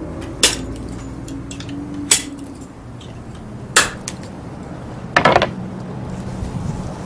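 Metal tool striking a metal strengthening band being fitted onto the head of an ash hurl: a few separate sharp metallic taps, with a quick cluster of taps about five seconds in.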